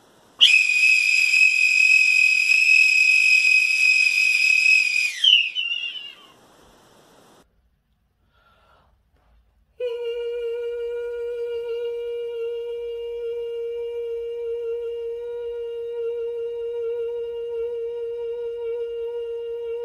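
A loud, piercing finger whistle, held on one high note for about five seconds, dropping in pitch as it breaks off. After a few seconds of silence, a man's voice holds one long, steady note, a sustained hum or held tone, as a contest for the longest mouth noise.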